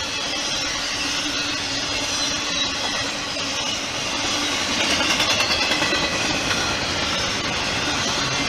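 Freight train passing close by: steady rumble and rail noise from container well cars rolling over the track, with a brief burst of quick, regular wheel clatter about five seconds in.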